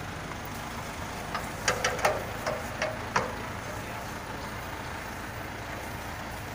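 About six short metallic clanks in quick succession around the middle, from a hand crank being worked and pulled from the operating box of a manually operated high-voltage disconnect switch. A steady outdoor rumble runs underneath.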